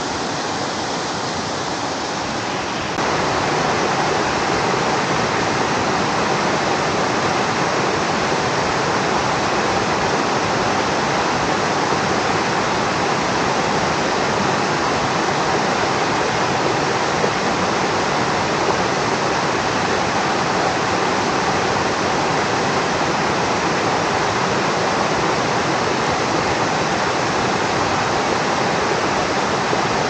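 Rainforest creek rushing over rocks, a steady rush of water that gets louder about three seconds in.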